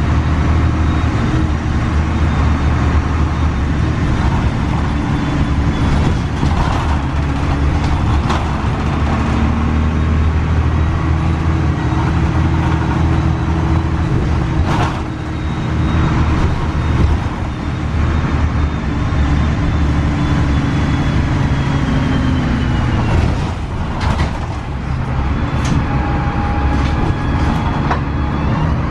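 Cabin sound of a 2002 Gillig Advantage transit bus under way: its Cummins ISC inline-six diesel engine and Voith automatic transmission running, the engine note shifting as the bus changes speed. A faint whine falls in pitch about two-thirds of the way through and rises again near the end, with a few short sharp clatters or hisses along the way.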